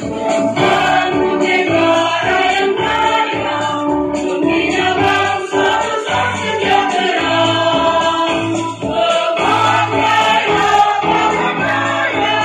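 Mixed choir of men's and women's voices singing a piece in several-part harmony, with sustained chords that change every second or so.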